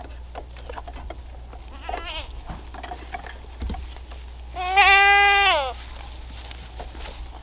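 Goat bleating: a short, wavering bleat about two seconds in, then one loud, long bleat of about a second near the middle that drops in pitch at the end.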